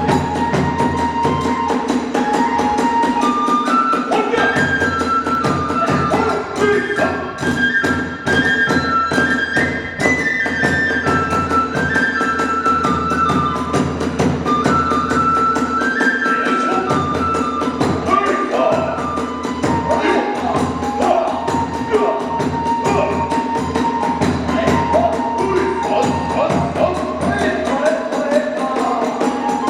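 Hiroshima kagura hayashi ensemble playing: a bamboo transverse flute (fue) carrying a stepping melody over continuous taiko drum strokes and ringing hand cymbals (tebyoshi), at a steady, driving pace.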